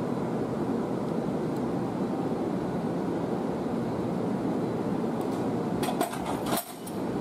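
Two coupled electric multiple-unit trains standing at a platform, their onboard equipment giving off a steady hum and whir. A few sharp clicks come about six seconds in.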